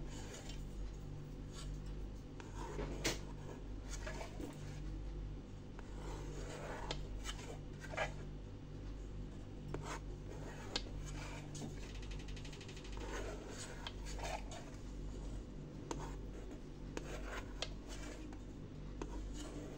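Kitchen knife slicing a soft steamed rice cake in a metal pan: light, irregular scrapes and clicks as the blade draws through the cake and touches the pan, over a steady low hum.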